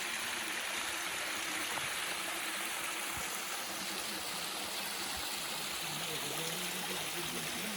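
Waterfall rushing with a steady, even sound of falling water.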